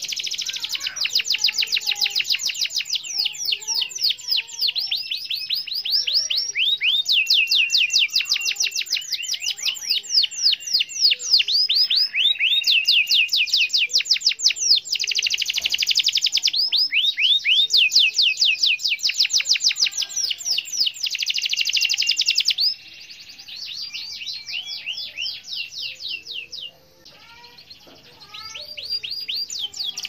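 Domestic canary singing a long, unbroken rolling song of rapid trills, each a fast run of repeated down-sweeping notes, switching from one trill to the next every second or two. It turns softer about two-thirds of the way through and breaks off briefly near the end before picking up again.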